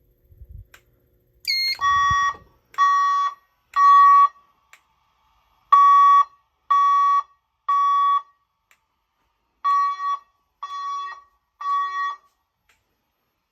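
EST Genesis speaker strobes sounding an air-horn evacuation tone in the temporal-three pattern: three half-second beeps, a pause, then the same again, nine beeps in all. A brief falling chirp comes just before the first beep.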